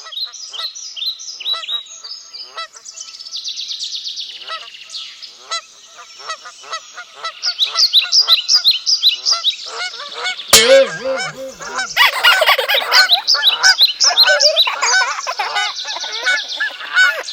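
Many birds calling at once: rapid, high chirping notes that build into a dense, loud chorus. About ten seconds in, a louder layer cuts in suddenly, with lower repeated calls under the chirping.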